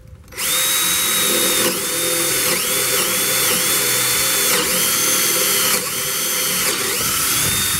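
Power drill with a 1/2-inch twist bit boring a hole through a wooden 2x4, starting about half a second in. The motor whine holds steady and dips briefly in pitch about six times as the bit bites into the wood.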